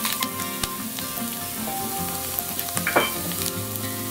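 Chopped morels sizzling and crackling steadily in a frying pan on a gas grill's side burner, with a short, sharper sound about three seconds in.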